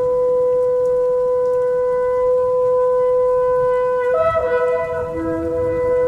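A shofar sounding one long held blast, steady in pitch, that wavers and cracks briefly about four seconds in before carrying on.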